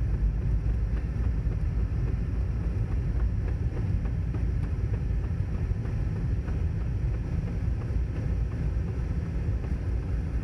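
Toyota Prius C with snow chains on its tyres driving over a snow-packed road: a steady low rumble with a few light knocks as the chains and car hit snow and ice.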